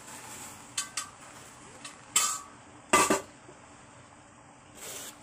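Metal cookware clanking as a boiling steamer pot and its lid are handled: a light clink about a second in, then two loud sharp knocks close together near the middle, and a softer scrape near the end.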